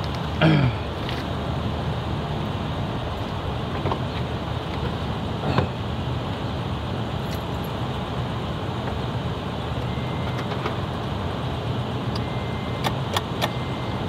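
2011 Scion tC's engine idling steadily, with a few sharp clicks near the end.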